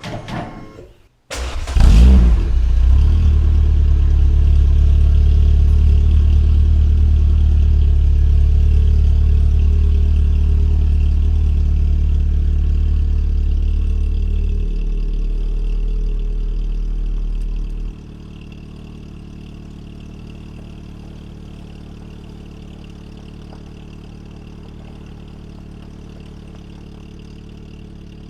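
Renault Sport Spider's 2.0-litre four-cylinder engine starting up about a second in and then running steadily. Well into the clip its level drops sharply to a quieter, steady run.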